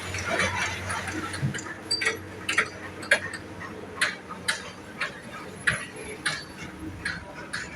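A series of sharp taps or clicks, irregular at roughly one to two a second, over a low steady hum.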